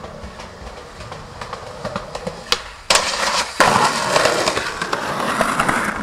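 Skateboard on a concrete path: sharp clacks of the board about three seconds in, then the wheels rolling with a loud, rough hiss.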